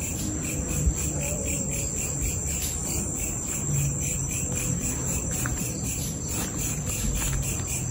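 Night chorus of crickets: a steady high-pitched trill with a rapid, even pulsing of chirps.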